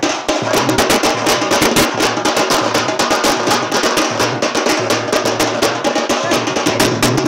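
Loud, fast drumming, many strokes a second in a steady driving rhythm, with a steady low note underneath.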